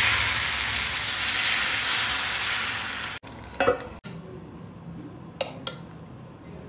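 Food sizzling as it fries in a hot pan, a steady hiss for about three seconds that cuts off abruptly. Then a short, loud clatter of a utensil against the pan, and a few light clicks near the end.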